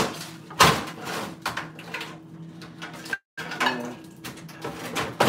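Irregular clanks, knocks and rattles of a microwave's sheet-metal casing and internal parts being handled and worked loose during disassembly, with one loud knock about half a second in.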